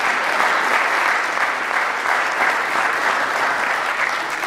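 An audience applauding: many people clapping steadily, easing slightly near the end.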